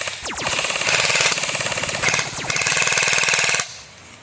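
Airsoft electric gun firing on full auto: a rapid, even buzzing stream of shots that stops about three and a half seconds in.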